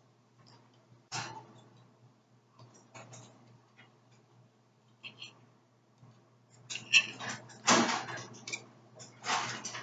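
Metal knife and fork clicking and scraping on a plate as steak is cut: scattered light ticks, then a few louder scraping strokes near the end.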